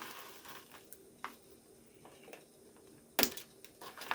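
Cardboard and plastic doll packaging being handled: faint rustling with a few small clicks and one sharp snap a little after three seconds in, as a tab or plastic fastener comes free.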